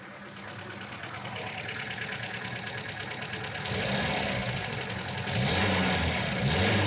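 Lada engine idling with its pistons installed backwards, running steadily with a fine fast ticking, getting louder about halfway through and again near the end. The mechanic feels it has developed a minor rumbly noise.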